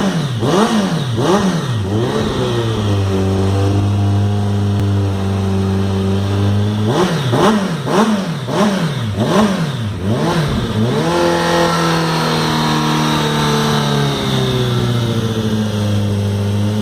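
Kawasaki ZX-14's inline-four engine through an aftermarket sport exhaust, loud, revved in a run of quick throttle blips and then settling to a steady fast idle. About seven seconds in it is blipped rapidly again several times before settling back to a steady idle.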